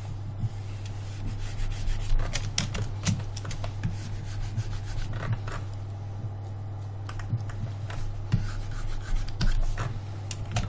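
A computer input device rubbing and scratching as it is dragged across its pad during brush strokes, with scattered short clicks, over a steady low electrical hum.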